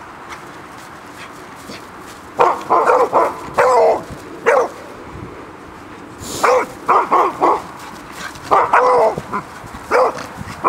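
A beagle barking at another dog in quick runs of short, high barks, three runs with pauses of a second or two between them.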